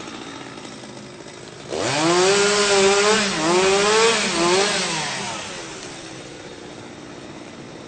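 Chainsaw engine revving up sharply about two seconds in, its note wavering and dipping twice as it runs hard, then dying away over the next couple of seconds, over a steady background of city traffic ambience.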